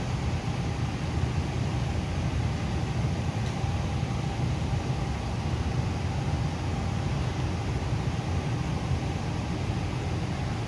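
Steady low rumbling background noise with a faint steady hum above it, unchanging throughout.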